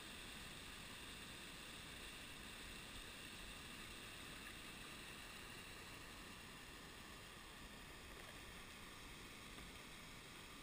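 Faint, steady rush of creek water spilling over rocks and a small waterfall.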